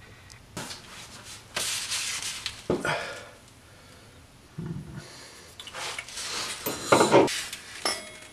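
Metal scraping, rubbing and clunking in irregular short bursts as a BMW E46 rear differential is worked up into its subframe mounts. There is a brief lull about a third of the way through.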